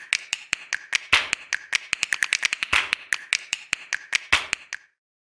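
A quick, irregular run of sharp taps, several a second, each with a short ring, stopping about five seconds in.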